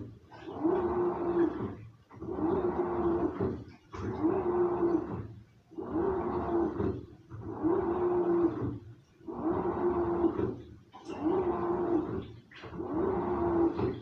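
Samsung washing machine mid-wash: the drum motor hums and water and laundry slosh in bursts of about a second and a half, with a short pause between each, about eight times over.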